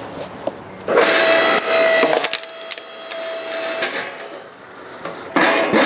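Yardmax YS0552 log splitter's electric motor and hydraulic pump running with a steady whine as the ram forces a rotted sycamore log into the wedge. The wood cracks and splinters loudly about a second in, and the motor stops about four seconds in. A second loud crack of splitting wood comes near the end.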